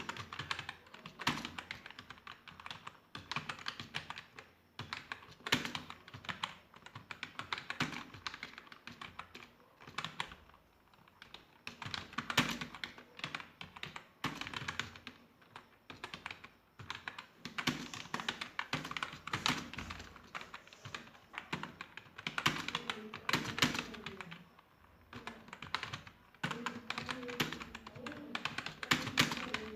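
Fast typing on a computer keyboard: a dense, uneven run of key clicks, broken by short pauses about ten seconds in and again near twenty-five seconds.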